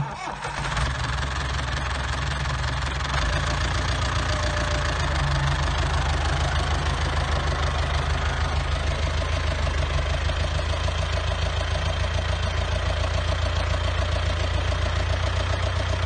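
International Harvester 785 tractor's diesel engine running at a steady low speed with an even throb as the tractor drives slowly and turns. The engine note shifts slightly about three seconds in.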